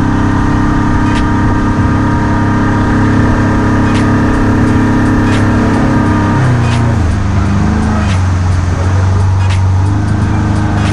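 A motor engine running steadily, its pitch dropping as it slows about six seconds in and rising again near the end.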